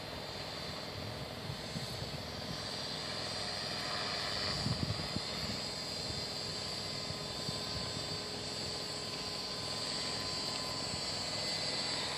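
Align T-Rex 450 electric RC helicopter flying high overhead: a steady, distant, high-pitched whine from its motor and rotor blades.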